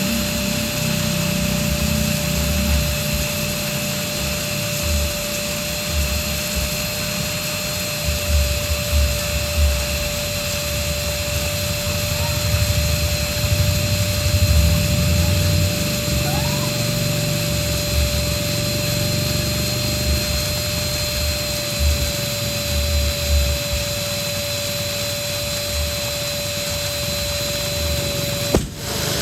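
Electric balloon pump motor running steadily with a constant whine and hiss as it blows air into a balloon; the sound cuts out briefly near the end.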